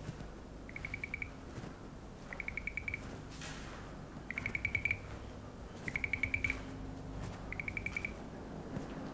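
Cricket chirping: six short trilled chirps, each of about eight quick pulses at one pitch, repeated roughly every second and a half over a faint low hum.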